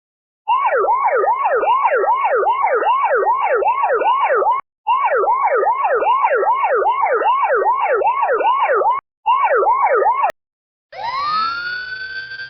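Electronic emergency-vehicle siren in yelp mode, its pitch sweeping up and down quickly about three times a second, broken off briefly twice and stopping about ten seconds in. Near the end a different siren starts, rising slowly in pitch and then holding a high note.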